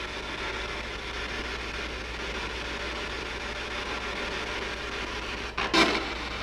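Steady hissing static from a ghost-hunting spirit box, a radio rapidly sweeping through stations, with one short louder burst of sound near the end.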